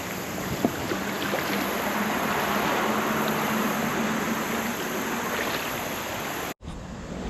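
Steady rushing of creek water, with a faint low hum under it for a few seconds and a few small clicks; the sound cuts off abruptly near the end.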